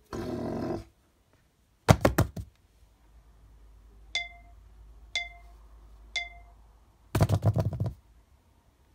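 A string of home-made sound effects: a short growl-like buzz, a quick rattle of about half a dozen sharp clicks, three identical ringing pings a second apart, then a rapid rattling burst just under a second long.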